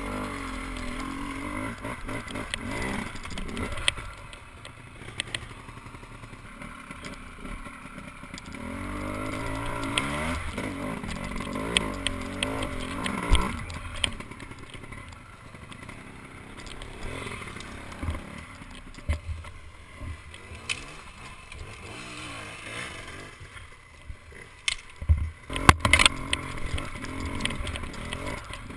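Enduro dirt bike engine revving up and dropping back as the bike climbs a rough trail, with a strong spell of throttle about nine to thirteen seconds in. Several sharp knocks near the end are the loudest sounds.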